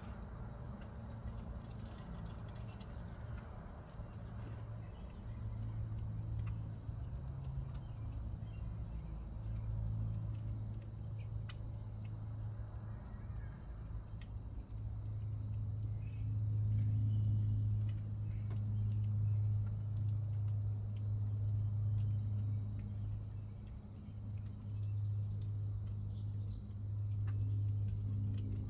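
Steady high-pitched insect chorus from a backyard, with a low droning hum that swells and fades under it and grows louder from about halfway through.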